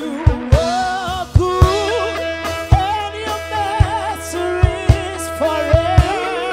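Gospel praise-and-worship music: a voice singing with wavering, held notes over a band, with a sustained low bass note and drum strokes, often in pairs.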